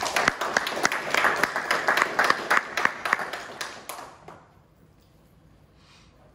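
Applause from a small group of people, starting at once and dying away about four seconds in.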